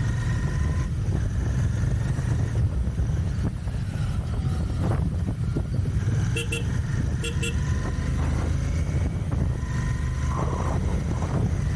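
Royal Enfield Continental GT 650's 648 cc parallel-twin engine running steadily on the move. A vehicle horn sounds twice in quick double beeps around the middle.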